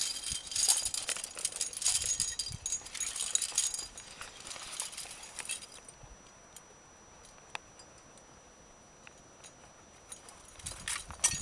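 Climbing hardware, carabiners and gear on a rack, jangling and clinking in a dense run for the first few seconds. It thins to scattered faint clicks and picks up again near the end.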